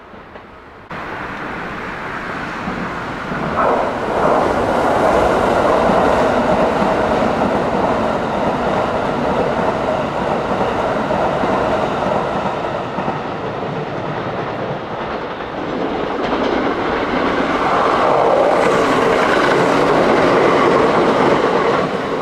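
Electric train running past: a loud, steady rush of running noise that starts abruptly about a second in and swells twice, once for several seconds early in the sound and again near the end.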